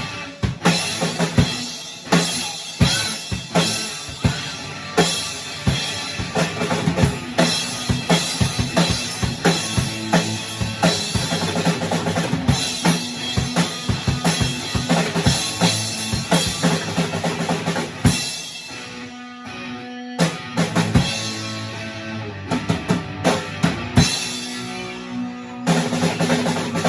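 Drum kit played in a busy, fast beat with kick, snare and rimshots over band music repeating the same three chords. The drumming thins out briefly about two-thirds of the way through, then comes back in full.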